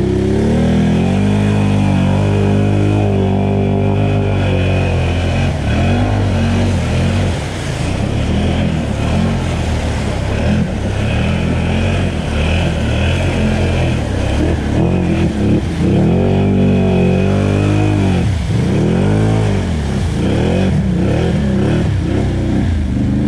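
Can-Am Outlander 850 XMR ATV's V-twin engine running under load while being ridden, its pitch climbing and falling with the throttle. Several quick deep revs come in the later part.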